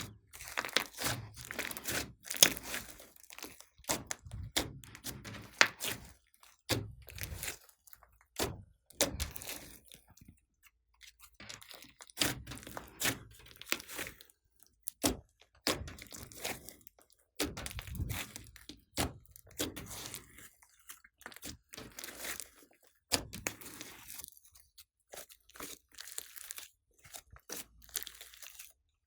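Hands squeezing, stretching and folding glossy slime, giving a run of irregular sticky crackles, clicks and pops with brief pauses between handfuls.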